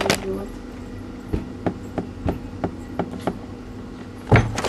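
Tabla keeping a soft, even beat of about three strokes a second over a steady held tone, with a louder stroke at the start and another near the end.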